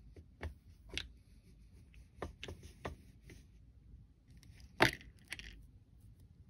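Small plastic toys being handled: a string of light clicks and taps, with one sharper knock about five seconds in.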